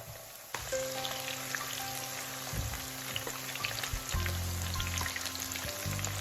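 Eggplant patties frying in hot oil in a pan: a dense sizzle full of small crackles that starts suddenly about half a second in and keeps going.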